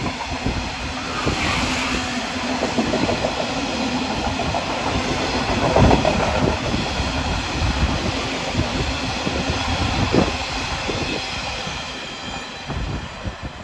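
Freight train of steel coil wagons rolling past, the wheels clattering over the track, dying away near the end as the last wagons go by.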